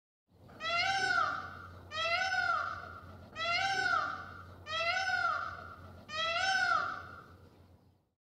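Peacock (Indian peafowl) calling five times in a row, one loud rising-then-falling wail about every second and a half.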